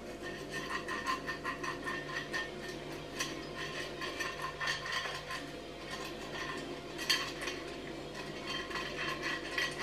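A pastry brush working over a removable waffle-maker plate, making light, irregular scrapes and small clicks against the plate.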